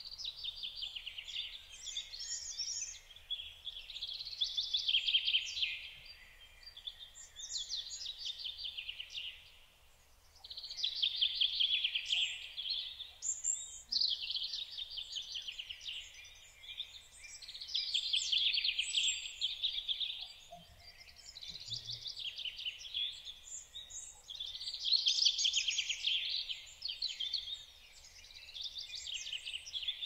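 A songbird singing a run of fast trilled song phrases, each about two to three seconds long, with short pauses between them.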